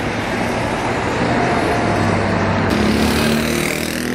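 Motor-vehicle and road-traffic noise: a steady engine hum under a wash of noise. It changes abruptly a little under three seconds in to a deeper hum with a few steady tones above it.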